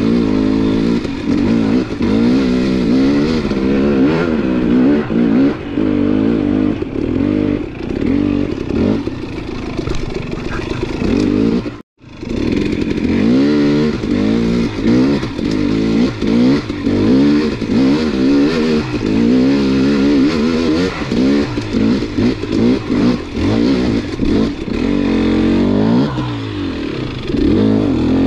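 KTM 250 dirt bike engine on the throttle, its pitch rising and falling constantly as the rider blips and revs it. The sound drops out for a moment about twelve seconds in.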